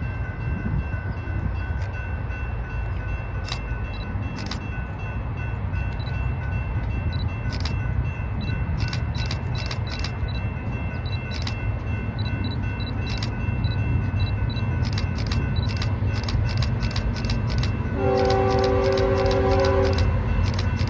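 Steady low rumble of diesel trains with a thin, steady high whine over it, and a run of sharp ticks that grows quicker in the second half. About 18 seconds in, the approaching train sounds its multi-chime air horn in one chord of about two seconds.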